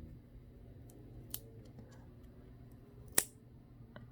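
Two small sharp clicks, the louder one about three seconds in, as the charging port part is pulled free from inside a smartphone.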